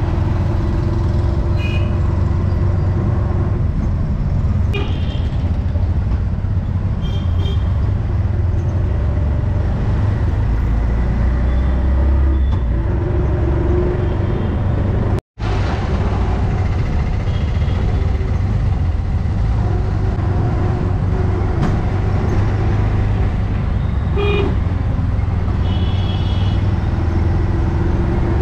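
Auto-rickshaw engine running steadily as it drives through town traffic, heard from inside the open cabin. Vehicle horns toot briefly several times.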